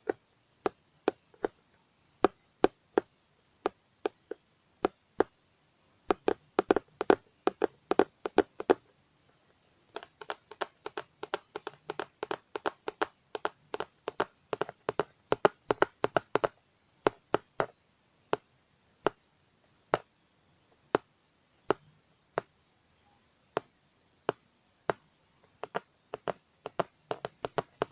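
Fingers tapping on a computer keyboard, ASMR-style. Slow single taps about a second apart give way to quick runs of rapid taps about six seconds in, then slow again later and speed up near the end.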